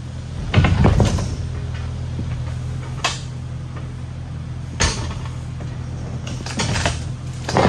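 Kubota KX057 mini excavator's diesel engine running steadily while its grapple grips and crushes a fiberglass boat hull, with sharp cracks and knocks about half a second in, around three and five seconds, and a burst of crunching near the end.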